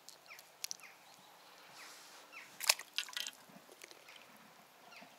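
Faint clicks and drips by the water, with one sharp click about halfway through and a few smaller ones after it.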